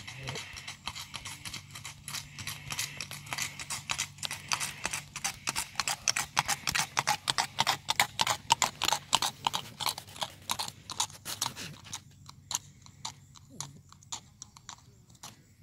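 Hoofbeats of a Tennessee Walking Horse in its four-beat saddle gait on a gravel road: a quick, even clip-clop. It grows loudest as the horse passes about halfway through and fades away near the end.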